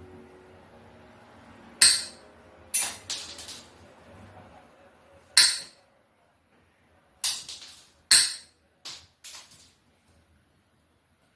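A series of about eight sharp clicks and clinks in irregular succession, from small hard parts of the spotlight wiring being handled and fitted.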